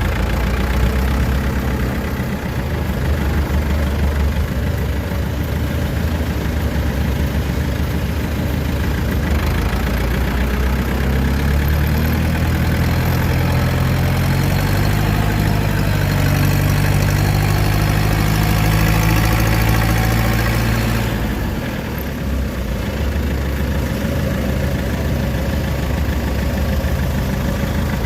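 Kubota DC-93 combine harvester's diesel engine running under load as it tows a broken-down tracked tiller. From about ten seconds in it works harder, its note stronger and slightly higher, then eases back at about twenty-one seconds.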